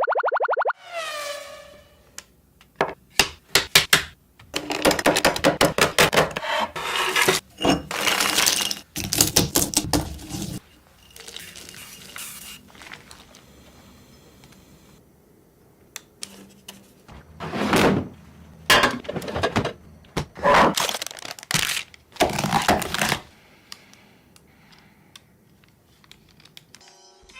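Hard chocolate shell cracking and crunching in irregular clusters of short bursts, with quieter stretches between them. Just after the start, a falling boing sound effect.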